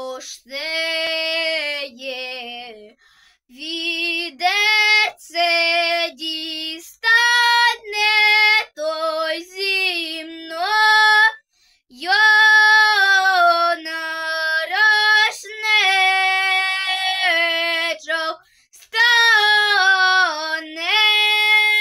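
A young girl singing a Ukrainian folk song solo and unaccompanied, in long phrases broken by short pauses for breath.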